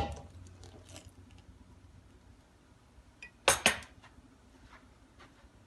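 Kitchen utensils and dishes clinking: a sharp clink at the start, light scattered ticks, then two loud clinks in quick succession about three and a half seconds in.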